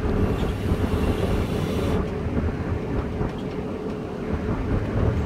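Steady low rumble and hum in a van's cabin. A soft hiss is drawn through a vape for the first two seconds and stops abruptly.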